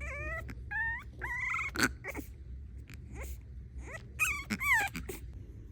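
French Bulldog puppy crying: a run of high, wavering whines in the first two seconds, then short yelps, and a louder pair of whines about four and a half seconds in.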